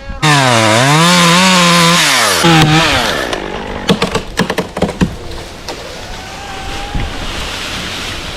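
Chainsaw running at full throttle through a cut, its pitch dipping and rising for about three seconds, then a run of sharp cracks and knocks, after which the saw drops to a quieter idle.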